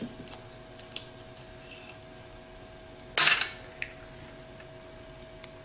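Small metal parts of a Ford alternator handled on a steel workbench: light metallic clicks, then one louder clatter about three seconds in as the part is set down on the steel.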